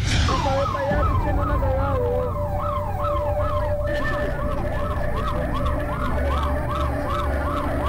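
An emergency vehicle siren sounding in fast rising-and-falling sweeps, about two to three a second, quickening a little about four seconds in, with a steady lower tone held beneath it and a low rumble throughout.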